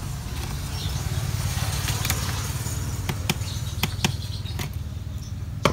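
Small sharp clicks and taps of tools and screws on the plastic bottom case of an Acer laptop being taken apart, about half a dozen spread over the second half, over a steady low hum.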